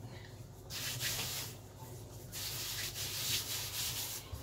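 Flour being sprinkled over a rolled sheet of fresh noodle dough to dust it before cutting: two soft swishing rustles, a short one about a second in and a longer one from about two seconds in.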